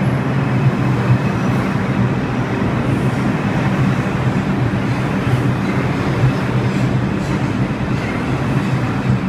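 New York City Subway R142 train pulling out of the station, its cars rolling past close by with a loud, steady rumble of wheels and motors on the rails.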